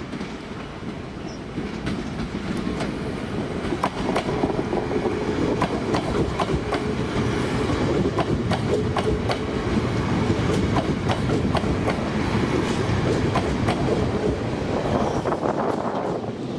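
A train running past with a steady low rumble, its wheels clicking irregularly over rail joints and pointwork. It gets louder about a second and a half in and eases near the end.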